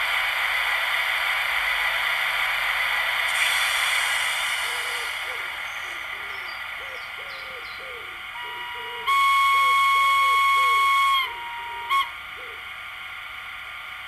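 Sound effects from a Märklin HO model of the SBB Ee 3/3 electric shunting locomotive standing still: a steady electric hum that fades away over the first few seconds, then one long whistle blast of about two seconds followed by a short toot.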